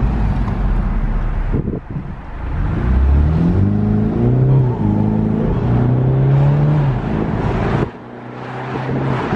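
BMW convertible's engine pulling away after a stop and accelerating hard. Its pitch climbs, drops back and climbs again several times as it shifts up through the gears, then falls away sharply near the end as the throttle is released. Road and wind noise come in through the open top.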